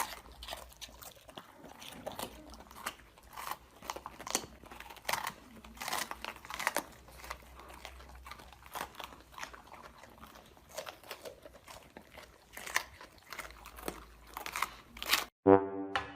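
A pet chewing something crunchy: many short, irregular crunches over about fifteen seconds.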